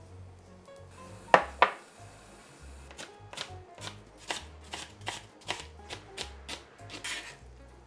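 Chef's knife chopping napa cabbage kimchi on a plastic cutting board, about three strokes a second through the second half, after two sharp, louder knocks about a second and a half in.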